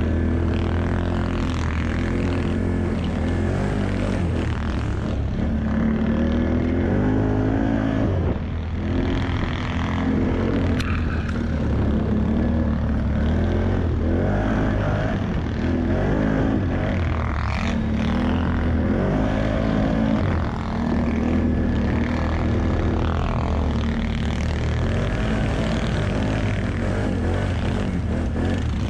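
ATV engine running under load on a snowy uphill trail, its pitch rising and falling with the throttle, with brief drops in level about eight and twenty seconds in.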